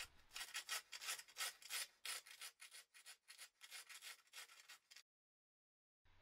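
Quick, even back-and-forth strokes of hand abrading a hardened cyano glue and Roket powder filling flush with the hardwood around it, about four strokes a second, stopping abruptly about five seconds in.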